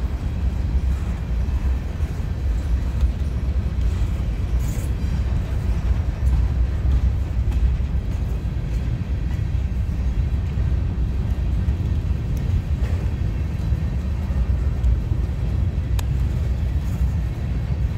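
Empty covered hopper grain cars rolling past on steel wheels: a steady low rumble of wheels on rail, with an occasional sharp click, the clearest near the end.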